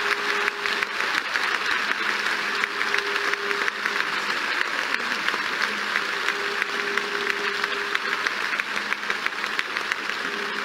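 Large stadium crowd applauding steadily, thousands of hands clapping into a dense patter. A faint held tone sounds on and off beneath it.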